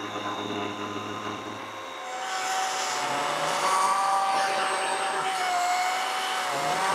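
DeWalt 60V brushless battery chainsaw cutting through a madrone log, its chain whine growing louder about two seconds in as the bar bites deeper. The pitch sags slightly under load near the end.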